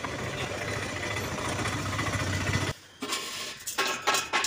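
A steady engine-like rumble that cuts off abruptly, followed by a few sharp metallic clanks with brief ringing from steel shed-frame tubing being handled.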